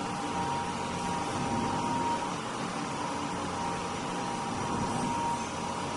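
Industrial machine running steadily: an even mechanical hum and hiss with a thin whine.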